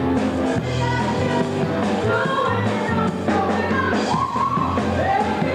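Live rock band with drums, guitars and bass playing while a singer sings the melody.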